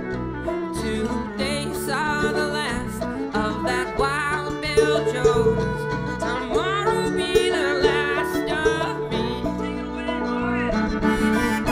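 Live bluegrass string band playing, with banjo and guitar picking under a sliding lead melody line.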